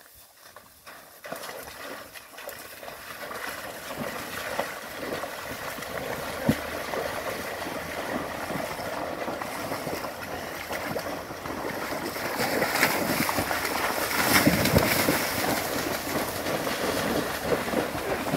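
Water buffalo wading and grazing in a shallow muddy pool: water and mud sloshing and splashing around their legs, with grass being torn and crackling. It starts faint and grows louder over the first few seconds.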